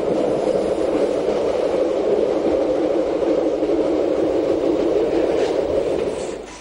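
Bodensee-Toggenburg Railway electric train running along the track, a steady rumbling noise that falls away near the end.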